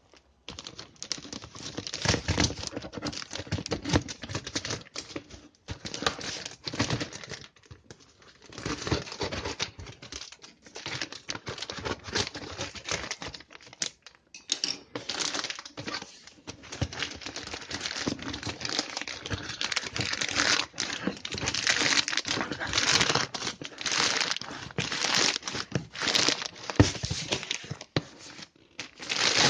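Plastic mailer bag crinkling and rustling in irregular bursts as hands tear it open and pull a cardboard shoe box out of it.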